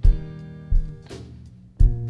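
Live worship band playing an instrumental passage: strummed acoustic guitar chords over electric guitar and keyboard, with drum kit hits, a heavy low drum beat at the start, about three-quarters of a second in and near the end.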